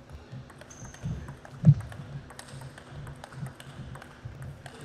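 Table tennis rally: the celluloid-type ball clicking sharply off bats and table in quick, irregular succession, over low thuds of players' feet on the court floor. A heavy low thump about a second and a half in is the loudest sound.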